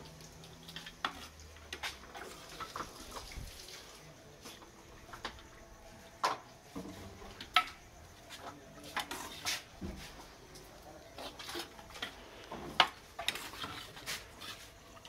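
Metal ladles knocking, clinking and scraping against a large metal cooking pot and clay pots in irregular strikes, a few of them sharper and louder.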